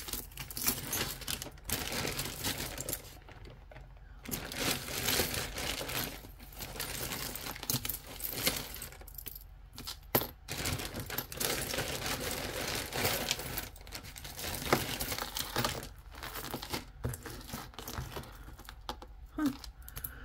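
Costume jewelry jingling and clinking as a hand rummages through a tangled pile of metal chains, beads and faux pearls, in irregular bursts of small clicks with short pauses between.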